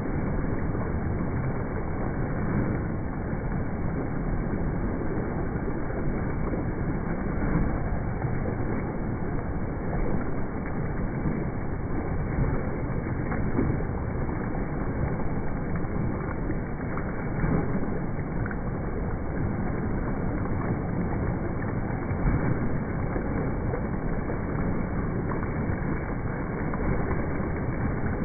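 Continuous splashing and churning of water from a swimmer's flutter kick on a kickboard, steady with small swells.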